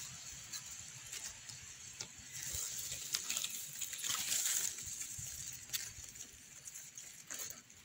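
Grass and dry leaves rustling and crackling as the mushroom picker moves through the undergrowth, louder in the middle, over a steady high insect drone.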